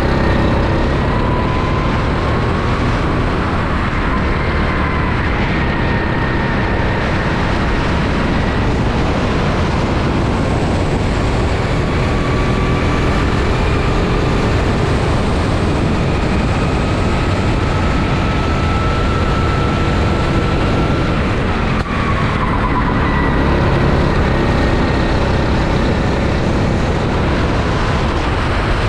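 Rental go-kart engine heard onboard at speed, its pitch climbing slowly along a straight and then falling sharply about three-quarters of the way through as the kart slows for a corner. A steady rush of wind and road noise lies under it.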